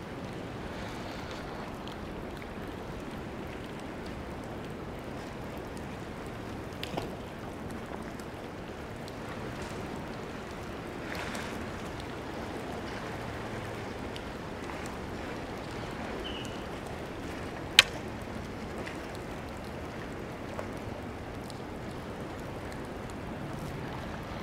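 Steady hiss of moving water and light rain. A single sharp click, the loudest sound, comes about eighteen seconds in.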